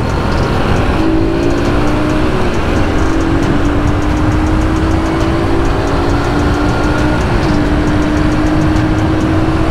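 Kawasaki KSR 110's small single-cylinder four-stroke engine running while the bike is ridden. The engine note dips briefly twice and otherwise climbs slowly, over a steady rush of wind noise.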